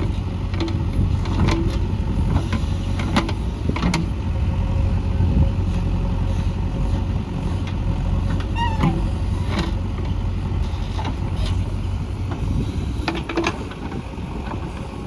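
JCB 3DX backhoe loader's diesel engine running steadily under work, with scattered sharp knocks and clanks and a few short squeaks.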